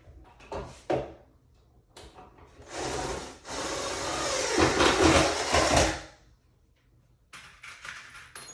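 Cordless drill driving a screw into a wooden shelf divider for about three and a half seconds, getting louder as it goes before stopping. A couple of sharp knocks come shortly before it.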